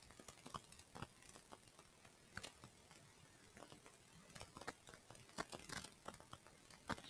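Near silence: faint room tone with scattered, irregular small clicks and ticks.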